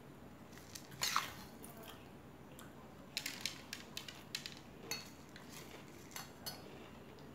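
Steel spoon scraping and clinking in a stainless steel bowl of puffed rice (murmura) as it is scooped. The loudest scrape comes about a second in, then a quick run of sharp clicks and two more near the end.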